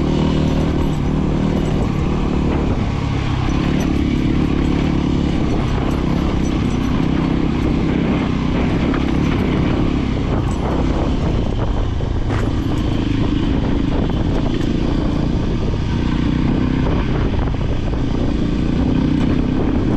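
Voge 300 Rally motorcycle's engine running under way, its revs rising and easing every few seconds, with rushing noise over it.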